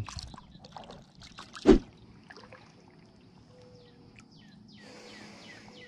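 Small water and handling sounds around a kayak, with one sharp thump a little under two seconds in. Faint bird chirps come in the second half.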